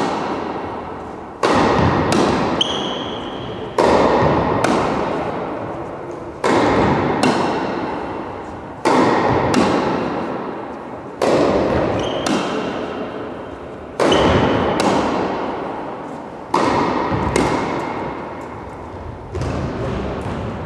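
Tennis ball struck by racket strings, a sharp pock about every two and a half seconds with fainter bounces in between, each hit ringing out in the long echo of a large hall.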